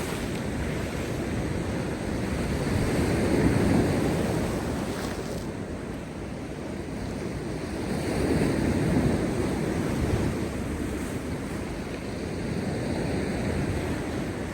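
Heavy post-storm sea waves crashing on rocks: a continuous rushing wash of surf, swelling louder about three seconds in and again about eight seconds in.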